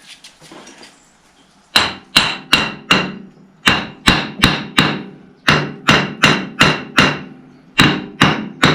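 Hammer striking metal, about sixteen quick blows in groups of three to five, each ringing briefly, starting about two seconds in. It is tapping a Fordson Major tractor's cover down over its seal, a cover that will not go fully home.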